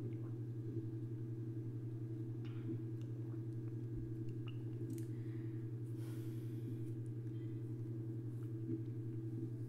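A steady low hum holds at one level throughout, with a few faint clicks and a brief soft rustle about six seconds in.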